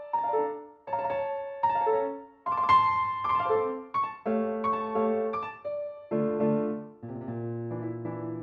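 Bright, upbeat instrumental electronic background music: a melody of short, quickly decaying chords, about two a second. About seven seconds in, a held low bass note and steady sustained chords take over.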